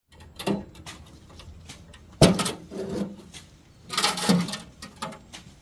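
A handful of knocks and clattering scrapes, the loudest a sharp knock about two seconds in.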